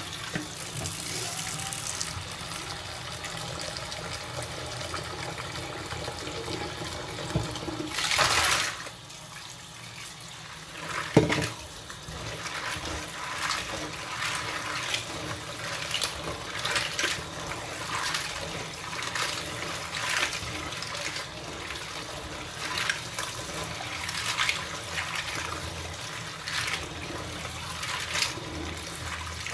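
Kitchen tap running steadily into a stainless steel sink while clams are rinsed by hand in a colander. The shells click and knock against each other and the colander as they are rubbed. A brief louder rush comes about eight seconds in, then a single sharp knock.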